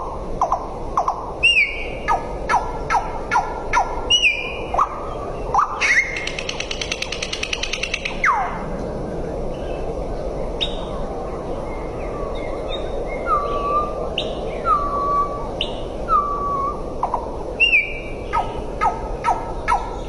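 A bird calling and singing in a varied run of short, quick downward-sliding whistles and chirps. A fast buzzy trill comes about six seconds in, and later there are several short clear notes that dip and level off, over a steady background hiss.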